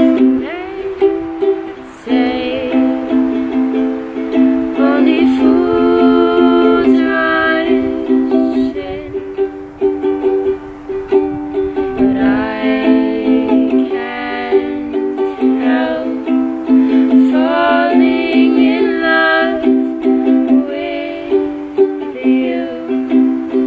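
Music: an upbeat tune led by a ukulele, playing without a break.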